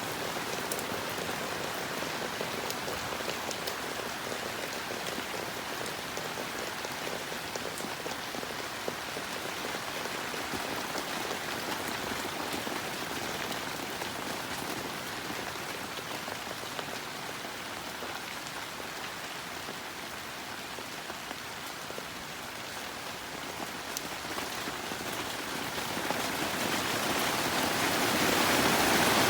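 Heavy autumn rain pattering steadily on a surface, with scattered individual drop clicks, growing louder over the last few seconds.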